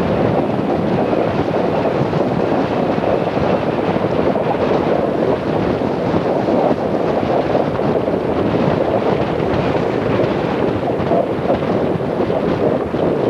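Steady wind buffeting the microphone aboard a sailboat under way in strong wind, mixed with rushing water.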